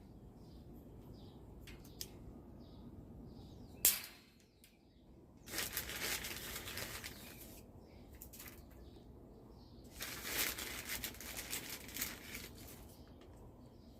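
Faint birds chirping in a steady, repeated pattern, with a sharp knock about four seconds in and two stretches of rustling.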